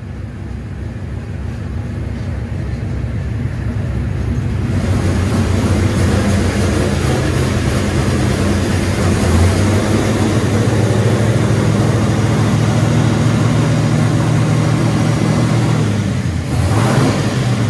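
LT1 383 stroker small-block Chevy V8 running under load on an engine dyno. It builds in loudness over the first several seconds, then holds a loud, steady run, dipping briefly near the end.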